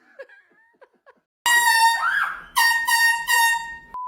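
Air horn blasting three times in quick succession at one steady pitch, the first blast the longest.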